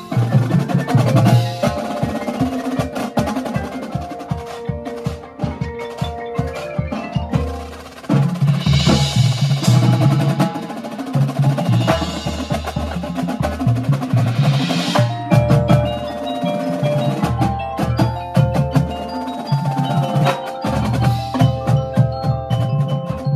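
Drum corps percussion section playing together: front-ensemble marimbas and vibraphones in fast pitched mallet patterns over drum strokes. About eight seconds in, held low bass notes and a bright, crash-like wash swell up, then fall away near fifteen seconds, when the dense mallet strokes return.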